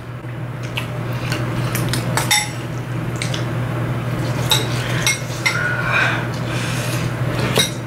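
Metal utensils clinking and scraping against ceramic ramen bowls in scattered irregular taps while noodles are eaten, over a steady low hum.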